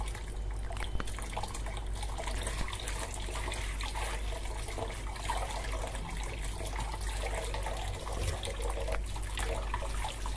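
Tap water running into a metal pot full of Malabar spinach leaves in a steel sink, with a hand swishing and lifting the leaves through the water as they are washed. It is a steady splashing rush with small irregular splashes.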